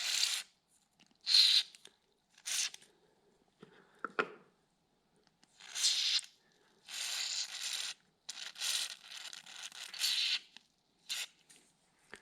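Short scraping and rubbing strokes, on and off, with a longer run of them past the middle, as grease is worked into a lawn mower wheel bearing.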